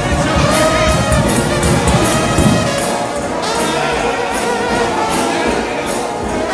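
A trombone shout band playing a fast gospel number, the massed brass sounding held chords over a bass line, with cymbal hits keeping a steady beat.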